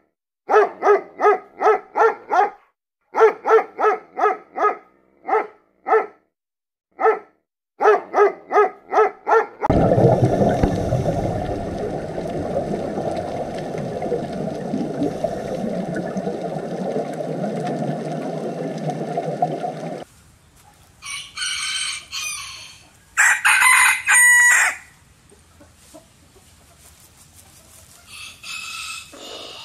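Chickens: runs of short, rapid, pitched clucking notes, then a stretch of steady low noise, then a rooster crowing loudly twice, with a fainter crow near the end.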